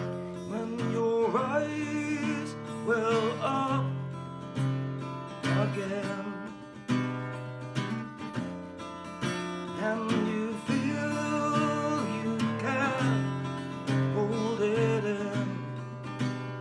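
Acoustic guitar strummed in a steady, repeating chord pattern: an instrumental stretch of the song.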